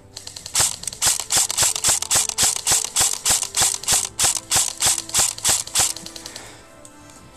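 Airsoft electric rifle firing a fast string of shots, about five or six a second, that stops about six seconds in, over background music.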